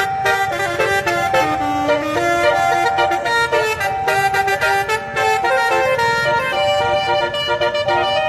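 A telolet basuri multi-tone musical horn playing a continuous melody of held notes that change pitch every fraction of a second.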